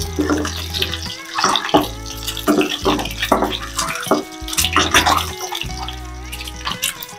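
Hot oil sizzling and spattering around whole boiled eggs frying in a pan, under background music.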